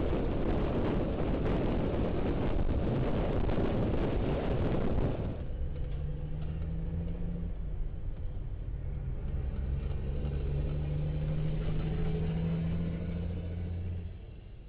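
Steady rumble of road noise from a moving vehicle. About five seconds in it changes abruptly to the quieter, steady low hum of a vehicle's engine heard from inside the cabin, which fades out near the end.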